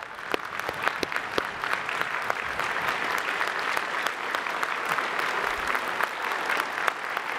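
A large audience applauding: dense, steady clapping that swells and fills out about a second in, then holds.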